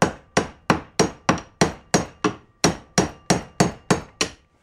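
Small hand hammer striking the broken outer CV joint on a Can-Am ATV front axle shaft clamped in a bench vise, driving the joint off the shaft. The metal-on-metal blows come in a steady run of about three a second, each ringing briefly, and stop shortly before the end.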